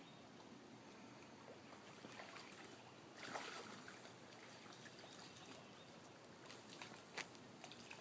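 Faint trickling and splashing of shallow floodwater where carp are spawning, with one brief louder splash about three seconds in and a few small sharp ticks near the end.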